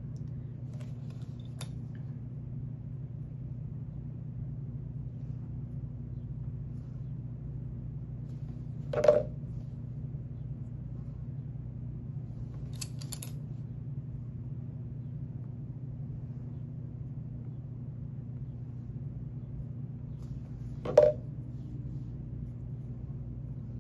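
Steady low electrical or room hum, with two sharp wooden taps, about nine seconds in and near the end, as popsicle sticks are set down on the coaster and wooden tabletop.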